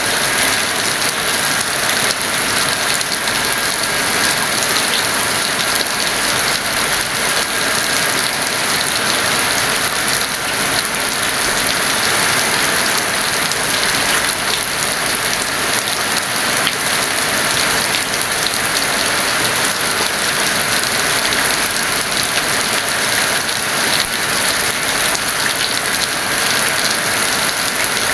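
Heavy rain falling steadily, a dense, even wash of many drops with no breaks.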